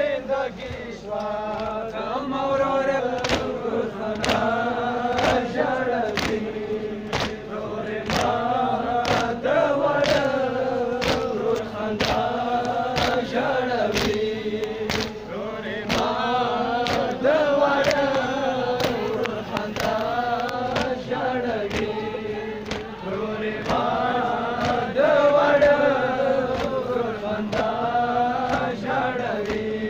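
A crowd of male Shia mourners chanting a noha (mourning lament) in unison. Sharp, regular slaps of matam (chest-beating) come about once a second.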